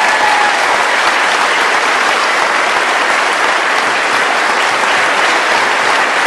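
An audience applauding: a steady, sustained round of clapping.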